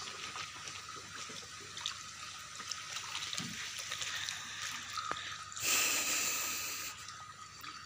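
Water splashing and bubbling steadily in an aerated fish tank, with a louder rush of noise lasting about a second, starting between five and six seconds in.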